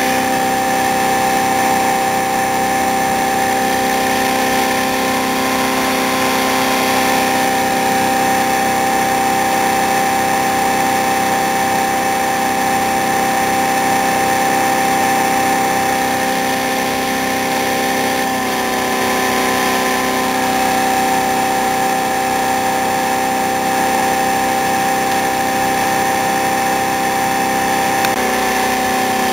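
Home-built iron-core axial flux pulse motor running steadily, a constant hum with several held tones. The tones shift slightly in pitch about two-thirds of the way through and again near the end.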